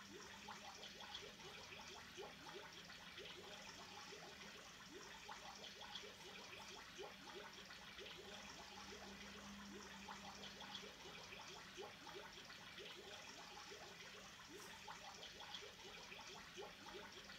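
Faint aquarium water trickling and bubbling, a steady stream of small bubble pops, over a low steady hum.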